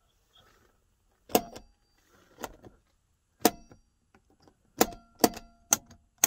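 Plastic interior light switch in the rear cabin of a 1994 Mitsubishi Delica Space Gear, clicked on and off several times: about seven sharp clicks spread over four to five seconds, starting about a second in.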